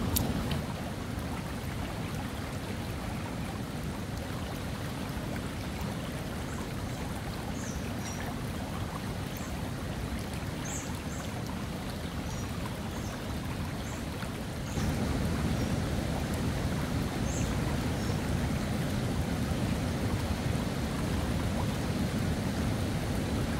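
Steady rushing of a river over shallow rapids, heaviest in the low range, with a few short high chirps in the middle. The rush steps up louder about fifteen seconds in, and there is a click right at the start.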